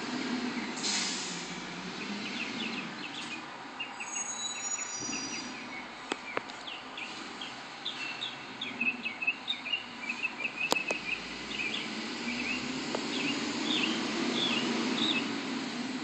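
Small birds chirping, many short repeated calls, busiest in the middle, over a steady low background rumble, with a couple of sharp clicks.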